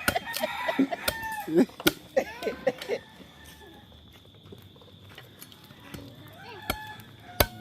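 Chickens calling: a rooster crowing and hens clucking, loudest in the first few seconds and again near the end, with a few sharp knocks in between.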